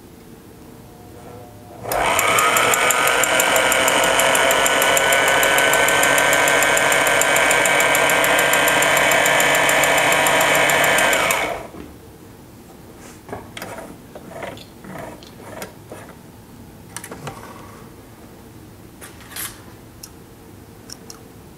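Sailrite LSZ-1 Ultrafeed portable walking-foot sewing machine starting about two seconds in and sewing a long run of piping. Its motor whine rises quickly to a steady high speed, then it stops abruptly about eleven seconds in. Light clicks and handling sounds follow.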